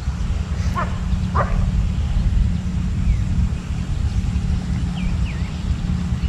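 Wind buffeting the microphone as a steady low rumble. Two short distant animal calls come about a second in, and two brief falling chirps near the five-second mark.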